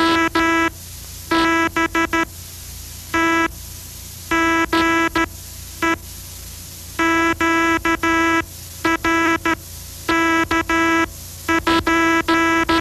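Early amateur spark-coil transmitter keyed by hand in Morse code: a buzzing tone sent as dots and dashes in groups, with short pauses between them.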